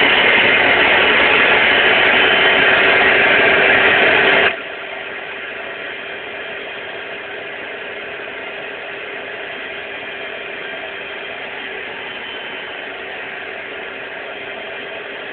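Hot water carpet extraction machine running with a steady whine. About four and a half seconds in its noise drops abruptly to a quieter steady run.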